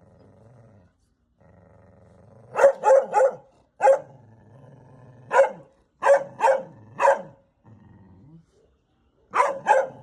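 A mother dog growling continuously at a stranger, breaking into loud, angry barks in quick groups of one to three, about ten barks in all. The barks echo through the house.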